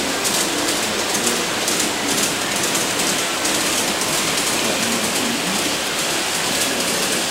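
G-scale model train running on an overhead layout: a steady rattle of wheels on track with fine clicking, and faint voices in the background.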